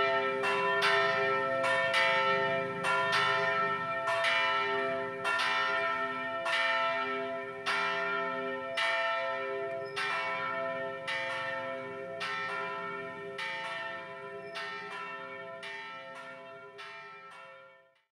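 Church bells ringing in a quick peal, strikes coming about two or three a second over a lasting ring, gradually fading out and stopping just before the end.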